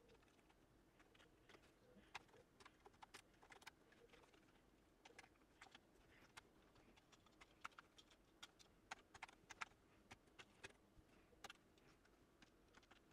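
Commodore Plus/4 keyboard keys pressed one after another, faint irregular clicks a few a second, as each key is tested after the keyboard's cleaning and reassembly.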